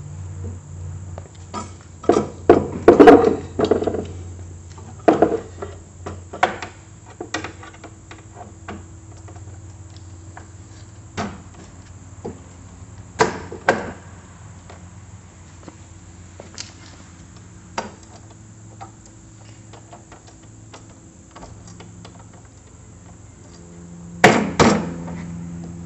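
Scattered metal clanks and knocks from handling the snowblower's discharge chute assembly while lining up its holes and fitting the pin. The busiest run of knocks comes a couple of seconds in, with more around 5 to 7 seconds and 13 seconds in, and a loud double clank near the end. A steady low hum runs underneath.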